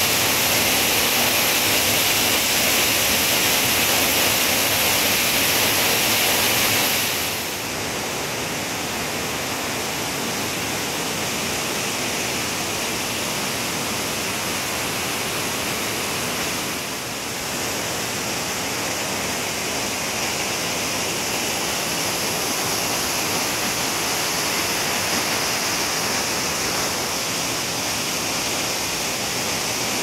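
Waterfall crashing into its plunge pool and white water cascading over boulders: a steady, dense rush of falling water. About seven seconds in it drops a little in level and sounds less hissy, with another brief dip a little past halfway.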